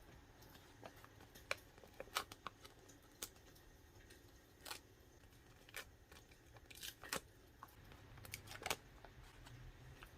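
Faint, irregular clicks and short rustles of paper and stickers being handled for a notebook collage, over a low, even background hiss.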